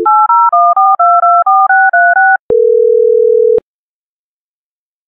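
Telephone touch-tone (DTMF) dialing: about ten quick two-note key beeps in a row as a number is dialed. Then a click, a steady tone for about a second, and another click.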